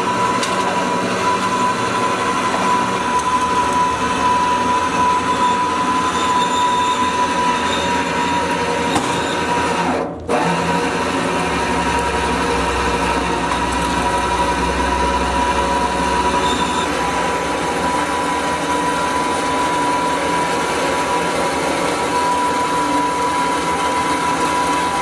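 Electric winch motor running under heavy load with a steady whine, pulling the 3/4-ton welding table up onto the trailer. The sound cuts out for a moment about ten seconds in, then carries on.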